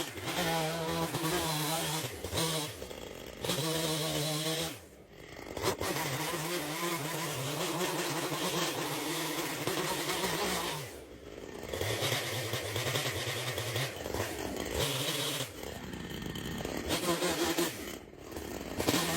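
Two-stroke chainsaw engine running and revving under load, in several stretches of a few seconds each that break off abruptly.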